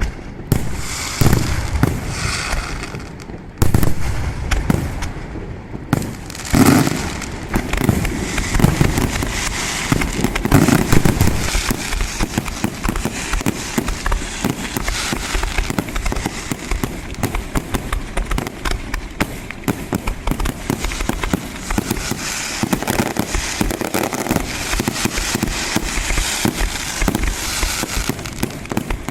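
Fireworks display: a few loud bangs in the first several seconds, then a dense, continuous crackling of many small reports.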